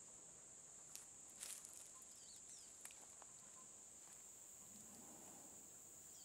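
Near silence: a faint, steady, high-pitched insect drone, with a few soft clicks about one to three seconds in.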